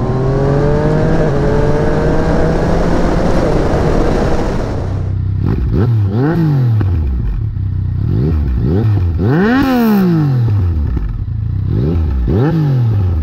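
Yamaha MT-09 three-cylinder engine through an Akrapovic exhaust, first pulling up through the gears with quick upshifts that drop the revs briefly. Then, about five seconds in, it is revved in a series of short throttle blips, with one higher rev around the middle.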